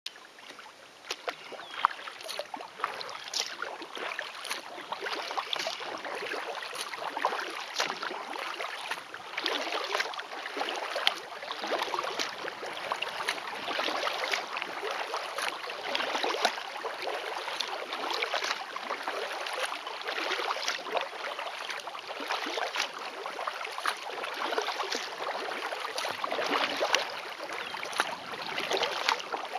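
Kayak paddle strokes in the water, a splash and drip about once a second in an even rhythm, as the kayak is paddled steadily along calm water.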